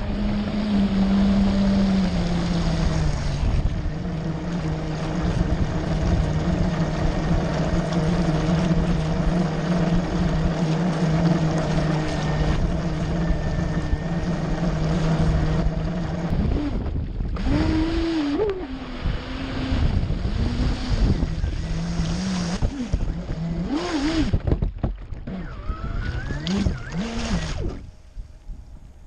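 Electric RC jet boat motor and jet pump whining at a steady pitch over rushing, splashing water. About two-thirds of the way through the whine swoops up and down with throttle changes, and near the end it drops away as the boat eases off.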